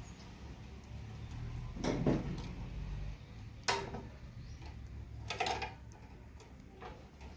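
Hand tools and metal cable fittings being handled: a knock about two seconds in, a sharp click near four seconds and a short rattle a little after five, over a steady low hum.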